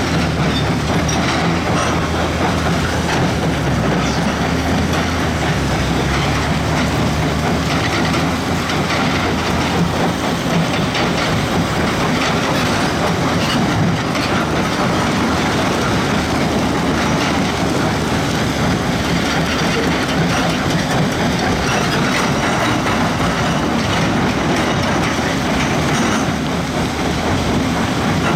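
Heavy diesel earthmoving machine running and working, a steady low engine hum under a continuous metallic clatter and rattle.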